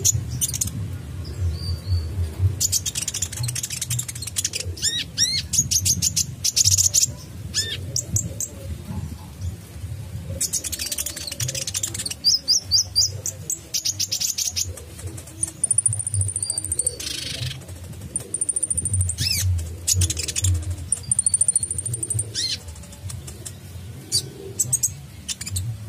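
Male Van Hasselt's sunbird (kolibri ninja) singing in full voice: bursts of sharp, high chirps and rapid trills, and in the second half three long, thin whistled notes held on one high pitch, over a low background rumble.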